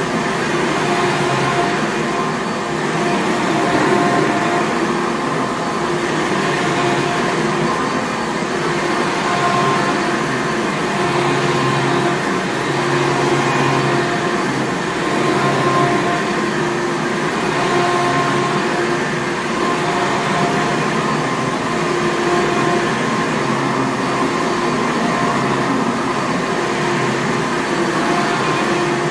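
A 1994 Hoover Elite Supreme upright vacuum cleaner running continuously. It gives a loud, steady rush of air with a motor whine whose tones come and go slightly as it is worked.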